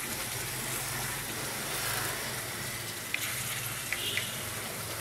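Tomato paste frying in hot mustard oil in a wok over high flame: a steady sizzle, with a few faint clicks about three and four seconds in.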